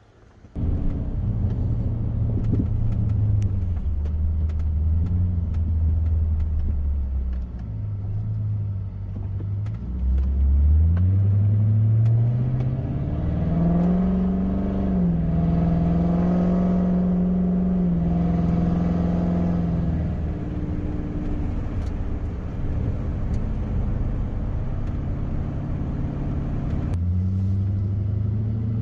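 2005 Dodge Magnum on the move: engine and road noise. About a third of the way in the engine note rises steadily as the car accelerates, holds high for several seconds, then drops back to an even cruise.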